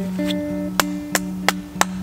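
Background music: an acoustic guitar instrumental with plucked held notes, cut through by sharp clicks a few times a second.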